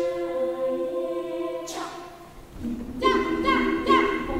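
Indonesian choir singing a cappella: a sustained chord, cut by a brief sharp hiss, then after a short lull quick, rhythmic sung syllables that swoop up over and over. The voices imitate instrumental accompaniment; no instruments are playing.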